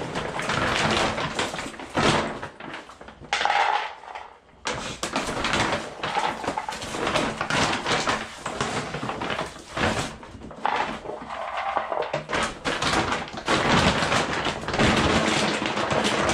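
Large plastic bag of Royal Canin dry dog food crinkling and rustling as a hand scoops out handfuls of kibble, with the kibble rattling, in irregular loud bursts and a few short pauses.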